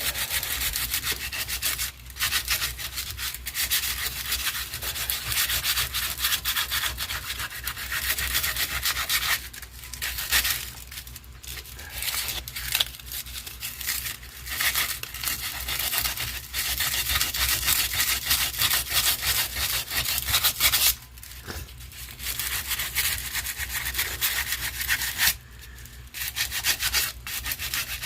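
Sandpaper rubbing on a small wooden radio knob to round it off, a steady scratchy sanding that stops for brief moments a few times, over a low steady hum.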